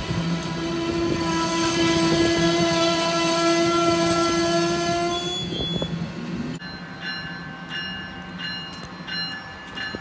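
Amtrak electric locomotive horn sounding one long chord of several notes over the noise of a passing train, ending about five and a half seconds in. After that comes a quieter rolling train with a regular ticking of wheels over the rails, about two a second.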